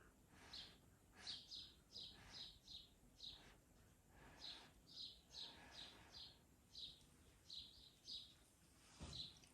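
Faint small-bird chirps, short high notes about two a second, over near-silent room tone, with a soft knock near the end.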